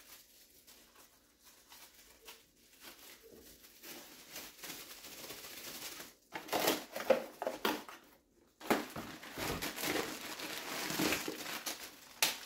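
Plastic packaging crinkling and rustling as an item is unwrapped from a bubble-wrap sleeve. It is faint at first, gets louder and busier from about six seconds in, breaks off briefly a little after eight seconds, then goes on.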